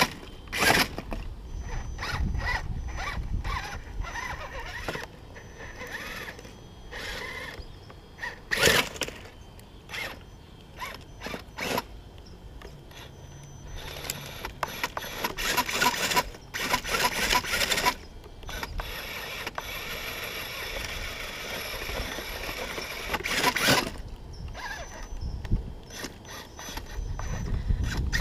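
Brushless-powered RC rock crawler (Axial RR10 Bomber with a Tekin Pro4HD motor) crawling over a log pile: the motor and gear drivetrain whine in bursts as it works, with the longest stretches in the second half. Sharp knocks and clatters come from the tires and chassis striking the logs.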